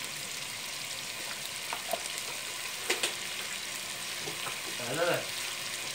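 Chunks of pork and beef sizzling in hot oil in a stainless steel pot, a steady frying hiss as the meat browns. A few light clicks come about two and three seconds in.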